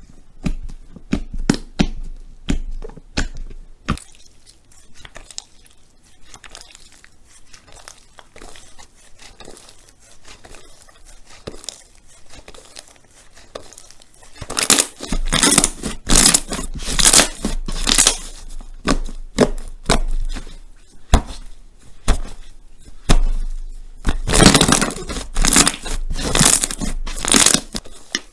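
Crunchy slime being pressed and squeezed by hand, crackling and popping. Scattered pops at first, then two spells of dense, loud crackling from about halfway through.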